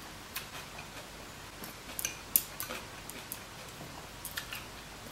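Quiet eating sounds: scattered light clicks and taps of chopsticks against bowls, with soft chewing.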